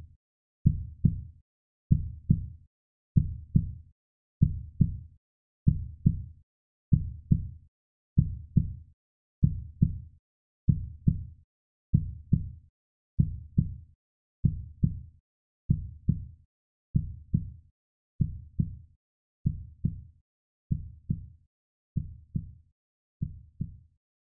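Heartbeat sound, a slow steady lub-dub: paired low thumps repeating a little under once a second, growing somewhat fainter near the end.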